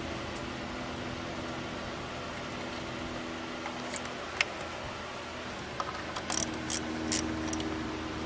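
Steady hum of a fan or similar machine, with a sharp click about halfway and a quick run of light clicks and clinks near the end as parts are handled during work on the engine.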